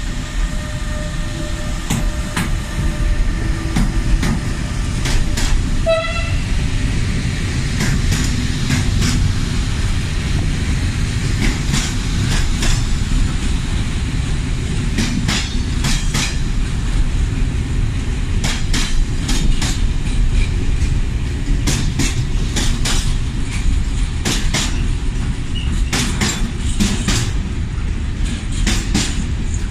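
Intermodal container train hauled by a Bombardier Traxx E186 electric locomotive passing close by: the locomotive goes past first, with a steady whine that fades within the first several seconds. Then a long string of container flat wagons rolls past with a continuous low rumble and repeated sharp clacks of wheels over rail joints, most frequent in the second half. A brief high tone sounds about six seconds in.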